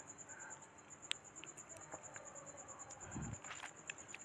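A few faint, sharp computer mouse clicks over a quiet background with a faint steady high-pitched whine, and a soft low thump about three seconds in.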